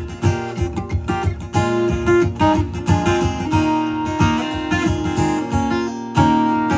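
Guitar playing an instrumental break in a blues-soul song, with strummed chords and picked notes and no singing.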